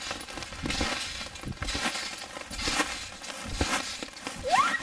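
Hail pelting a trampoline's mat with a steady patter, broken by the irregular thuds of bare feet bouncing on it. A short rising squeal comes near the end.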